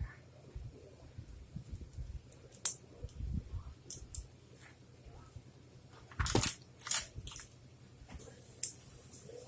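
Plastic Lego pieces clicking and clattering as they are handled and pressed together: scattered sharp clicks, with a longer rattle about six seconds in.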